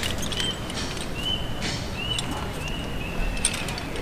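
A small bird chirping a short, high, upward-slurred note about five times in a row, with light clicks of rope-access hardware being handled.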